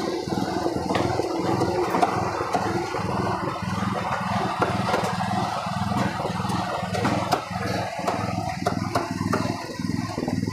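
A steady, low engine-like drone runs throughout. In the second half come sharp knocks, a cleaver chopping on a wooden block.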